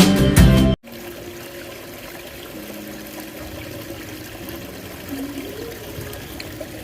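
Rock background music that cuts off abruptly under a second in, followed by a steady flow of running water.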